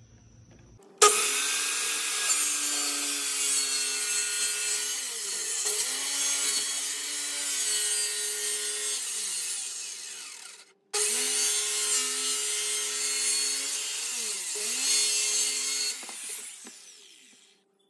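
Corded circular saw ripping a narrow strip off a glued-up wood panel. The motor's steady whine sags in pitch now and then as the blade loads in the cut. The sound breaks off briefly near the middle, starts again, and winds down near the end.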